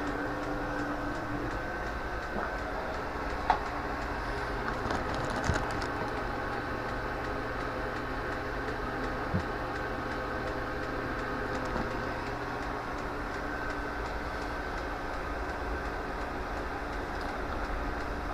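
Chinese 2 kW diesel air heater running steadily with no exhaust pipe fitted, its fan and burner giving a continuous mechanical noise, with a few light clicks. It has just run out of fuel and is expected to shut down on a no-fuel error.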